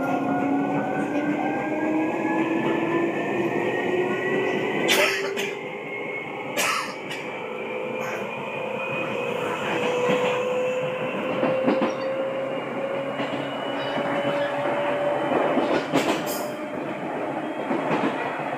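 Seibu 2000 series electric train running, heard from inside the carriage. The traction-motor whine climbs in pitch as the train accelerates, then levels off over the rumble of the wheels. A few sharp knocks come at about 5, 7 and 16 seconds.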